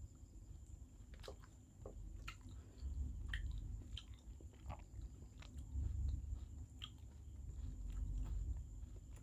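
A person chewing a mouthful of rice and fish curry, with scattered small wet clicks and smacks.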